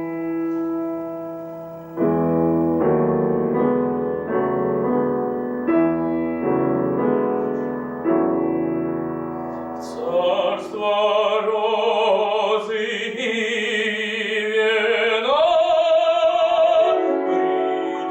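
Piano introduction of a classical romance, with chords for about ten seconds. Then a trained classical voice with vibrato enters, sung over the piano accompaniment.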